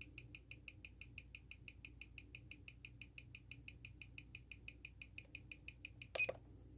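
Mechanical watch movement, the Seiko SARB035's 6R15 automatic calibre, ticking fast and evenly at about six beats a second while clamped on a timegrapher for a rate test. The ticking cuts off about six seconds in, with a short knock as the watch in its holder is handled.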